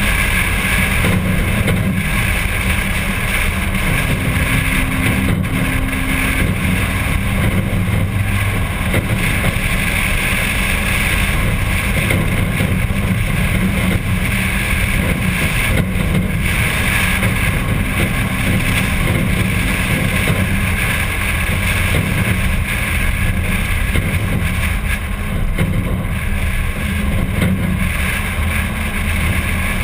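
Steady wind rush over a hood-mounted camera, with the drone of a 1951 Packard's straight-eight engine running at cruising speed underneath.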